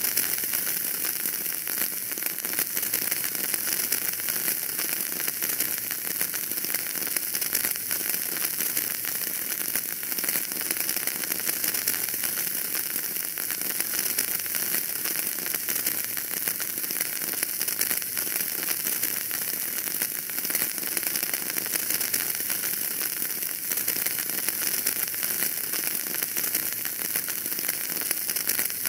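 Wood fire burning in a fireplace: a steady, dense crackle of small pops over a constant hiss.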